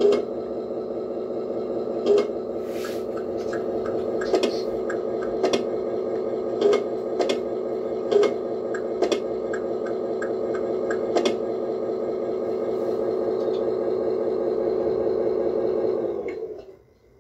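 The sound unit of an RC Scania 113 model truck plays a diesel engine idle through its small speaker: a steady drone with a light ticking a few times a second and sharper clicks every second or two. About sixteen seconds in, the engine sound winds down and stops, as at a shutdown.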